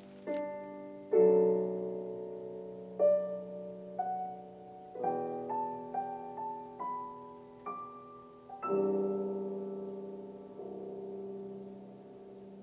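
Slow background piano music: single notes and a few chords, each left to ring and fade.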